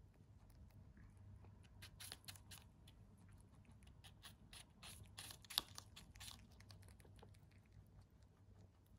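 A rabbit biting and chewing a piece of raw apple: faint, crisp crunches in quick clusters through the middle, with one sharper crunch a little past halfway.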